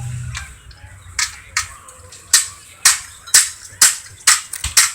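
Hammering during assembly of a 1924 Ford Model T: about nine sharp knocks at roughly two a second, starting about a second in and stopping near the end.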